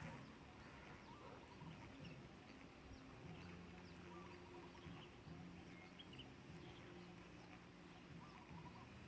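Near silence: faint outdoor ambience with a steady high drone and scattered faint bird chirps.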